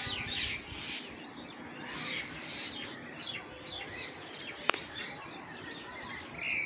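A flock of common mynas chirping and chattering, with many short, quick calls overlapping throughout. A single sharp click comes about two-thirds of the way through.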